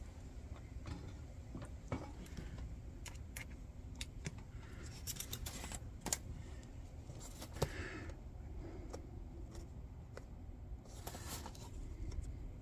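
Scattered light clicks and clinks of small metal parts being handled, with brief scraping about five seconds in and again near eleven seconds: pins being fitted to hold a mica pane in a steel folding candle lantern.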